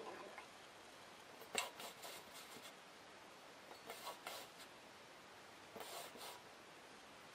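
Marker pen scribbling and rubbing on the bottom of a stainless steel bowl: three faint runs of short scratchy strokes, about one and a half, four and six seconds in.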